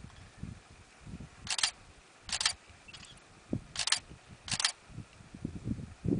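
Camera shutter clicking four times, in two pairs of shots about three-quarters of a second apart, over a faint low rumble.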